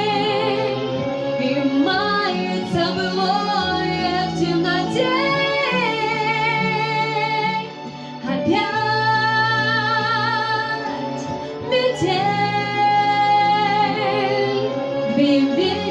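A female vocalist singing long held notes with vibrato over an instrumental accompaniment, with no clear words.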